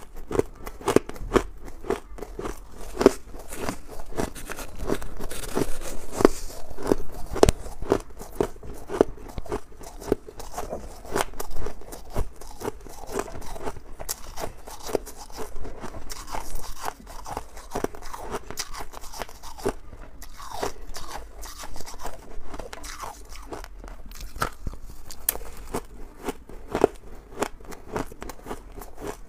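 Close-miked crunching and chewing of mouthfuls of soft, snow-like freezer frost: dense, irregular crunches, several a second.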